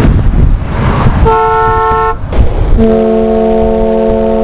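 Car horn blasts: a short honk about a second in, then a longer, lower-pitched honk that holds until near the end, over a steady low rumble.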